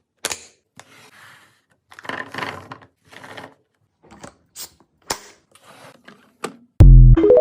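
Fridge restocking: plastic containers, lids and packaging being handled and set down, giving irregular clicks, taps and short clatters. Near the end comes a much louder, low booming sound with a ringing tone.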